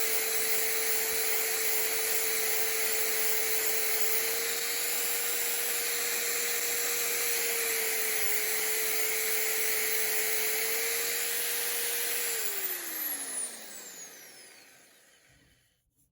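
Power tool driving a Montolit FT-J diamond core bit through hard porcelain tile: a steady motor whine over a gritty hiss. About twelve seconds in the motor is switched off and the whine falls in pitch and fades as it spins down.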